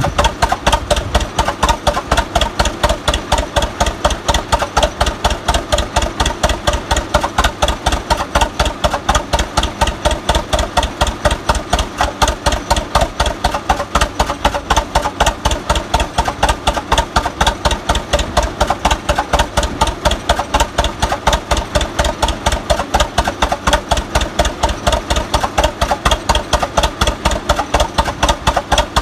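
Hart-Parr 18-36 tractor's two-cylinder horizontal engine idling with a steady, even beat of exhaust pulses. It is freshly tuned, with a new carburettor float and a magneto fix that cured carbon tracking in the distributor cap.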